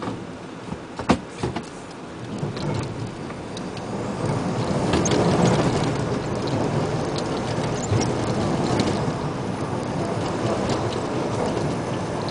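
Isuzu Giga dump truck driving on a loose gravel road, heard from the cab. A heavy rumble of engine and tyres runs under a continuous crackle of gravel, with many sharp clicks of stones. A few loud knocks come about a second in, and the rumble grows louder from about two seconds in.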